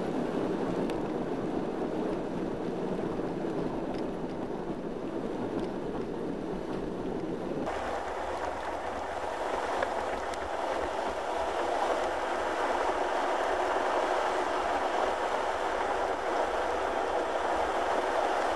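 Steady road and engine noise heard from inside a moving vehicle on rain-wet pavement. About eight seconds in, the sound changes abruptly and turns to a brighter hiss.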